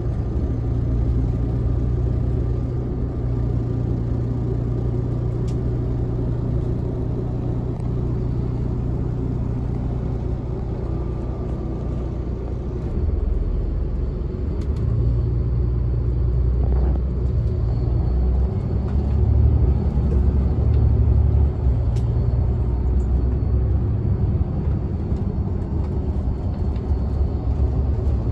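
Bus engine and road rumble heard from inside the passenger cabin while riding: a steady low drone. About halfway through the low pitch shifts and the rumble gets a little louder.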